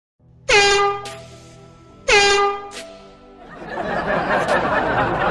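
Two blasts of an air horn about a second and a half apart, each starting with a quick downward slide in pitch and then dying away. From about three and a half seconds in, a steady noisy din takes over.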